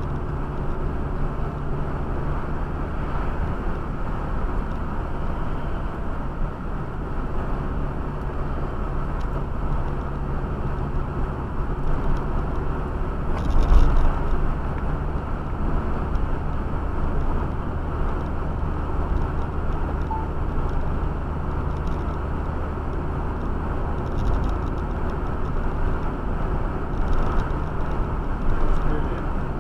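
Car cabin noise at about 70 km/h: a steady engine hum under tyre and road noise. A single thump about halfway through.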